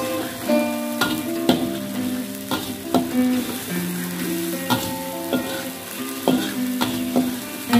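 Ground shallot, garlic, chili and tomato spice paste sizzling in hot oil in a wok, sautéed until fragrant, while a metal spatula stirs it with scrapes and taps against the pan.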